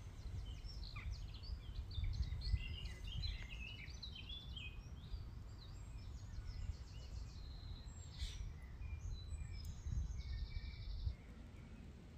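Woodland birdsong: several small birds chirping and whistling, busiest in the first half, with a short fast trill a little after ten seconds in, over a low rumble.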